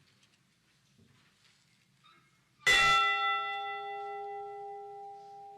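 A bell tolled once in memorial, struck about two and a half seconds in with a sharp clang, then ringing on with a clear tone that fades slowly.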